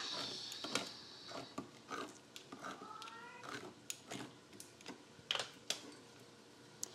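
Handheld manual can opener cranked around the rim of a tin can: a run of irregular clicks and ratcheting as the cutting wheel works through the lid, then a couple of sharper knocks a little after five seconds in as the opener is set down.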